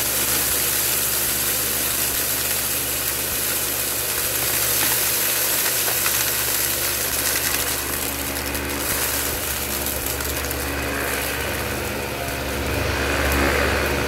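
Dyson Ball Multifloor upright vacuum cleaner running on carpet, its motor and brush bar making a steady hum. Around the middle, rice and hard candy pieces click and rattle as they are sucked up, and the sound swells briefly near the end.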